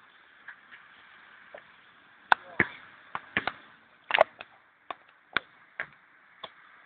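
Basketball bouncing on the court and striking the backboard and rim: about a dozen sharp knocks at irregular intervals.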